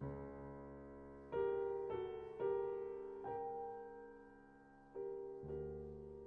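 Slow solo piano music: notes and chords struck one at a time, about a second apart, each left to ring and fade.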